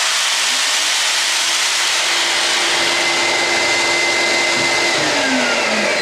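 Interskol PU-32/1200 wet/dry vacuum running with a steady rush of suction, started automatically by the power tool plugged into its socket. The tool's motor whines alongside it and winds down in pitch over the last second as the tool is switched off.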